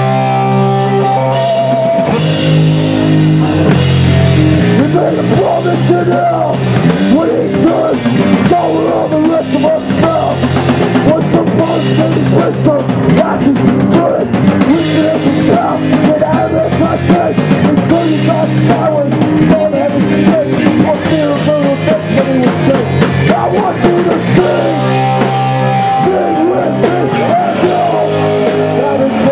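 Hardcore punk band playing live and loud: distorted electric guitars and bass over a pounding drum kit, with a vocalist singing into the microphone.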